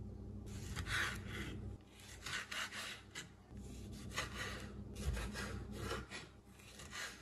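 Kitchen knife sawing through a tomato on a wooden cutting board: several bursts of short scraping strokes through the skin and flesh.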